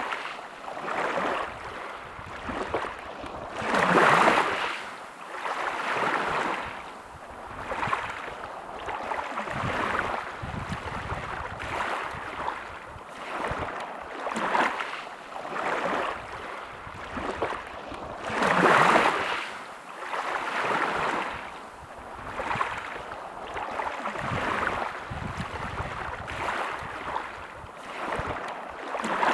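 Small sea waves washing in on a shore, a rush of water every second or two, with two bigger waves breaking about four seconds in and again about nineteen seconds in.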